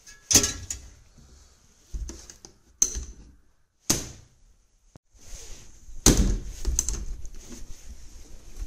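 Several sharp knocks and clunks, some with a brief hiss of air, then a sandblaster starts blasting steadily about five seconds in with a continuous high hiss.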